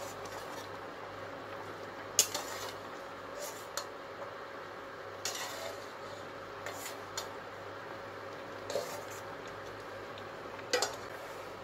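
A ladle knocking and scraping against a stainless steel pot of simmering coconut-milk dessert while it is stirred: a few short, scattered clatters over a steady faint hum.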